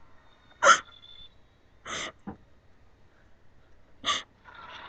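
Four short, breathy bursts of a person's voice, a second or more apart.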